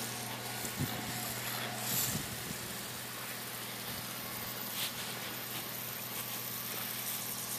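Steady hum of a horizontal directional drilling rig's engine and pump running, under the hiss of pressurised fluid jets spraying from the drill head, with a couple of faint clicks.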